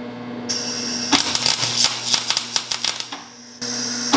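Wire-feed (MIG) welder arc crackling on steel as it lays tack welds, in two runs: the first starts about half a second in and stops about three seconds in, and the second starts again half a second later.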